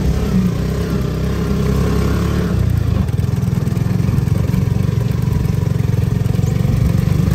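Small motorcycle engine of a three-wheeled motorcycle taxi running as it drives, a rapid steady putter from about two and a half seconds in. Before that, an uneven, lower engine rumble.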